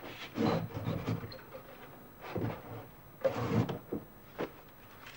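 A compartment being slid open and handled, in three short scraping bursts with a brief knock about four seconds in.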